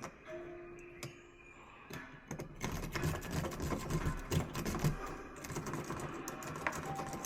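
Lockout tools clicking and rattling while working a lock. There are a few scattered clicks at first, then from about two and a half seconds in a dense run of rapid clicks and rattles with low knocks.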